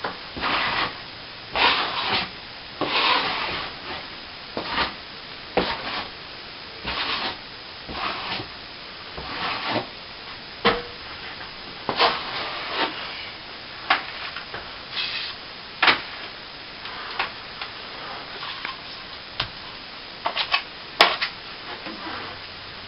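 Plastering trowel scraping and smoothing wet cornice cement over a patched plasterboard ceiling, in irregular strokes about a second apart, with a few short sharp knocks.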